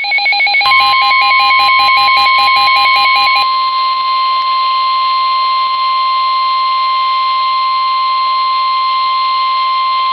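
NOAA Weather Radio warning alert. A rapid pulsing electronic beep, about four pulses a second, runs for the first three and a half seconds. Over it the steady single-pitch 1050 Hz warning alarm tone starts and then holds on alone.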